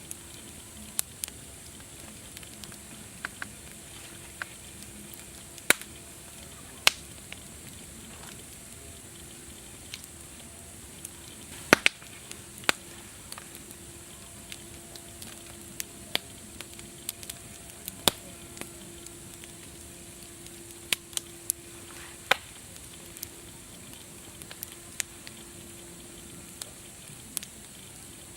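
Wood fire crackling: sharp, irregular pops and snaps, a few much louder than the rest, over a steady soft hiss.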